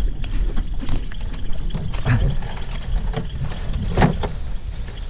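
Movement and handling noise while a light boat is carried overland: a steady low rumble on the microphone with scattered knocks and rustles, the loudest about two and four seconds in.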